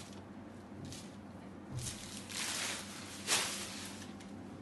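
Rustling of a chiffon saree as it is unfolded and spread out by hand, in a few short swishes, the loudest about three seconds in.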